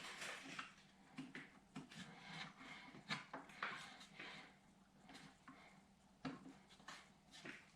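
Faint, irregular clicks and scrapes of hand work with a screwdriver, driving screws into a clutch housing liner.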